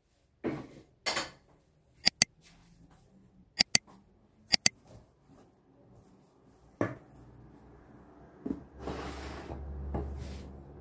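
Kitchen utensils clinking against dishes: three sharp double clicks spread over a few seconds, then a knock and a longer stretch of handling noise near the end.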